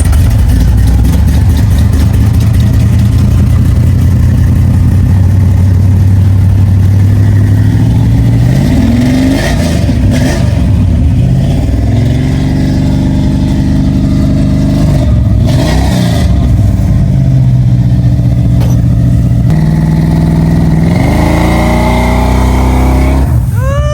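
A car engine running loud at high revs, its pitch holding steady, then rising, falling and jumping several times as the car is driven hard. Two brief rushes of noise come around the middle.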